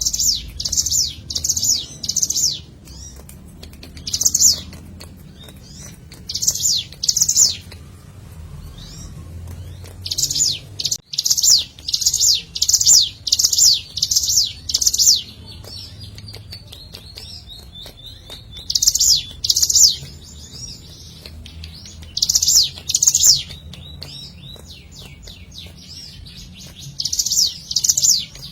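Ciblek gunung, a small Javanese prinia, singing. It gives groups of sharp, high, downward-slurred chirps, two to seven in quick succession at about two or three a second, then short pauses. A faint low hum runs underneath.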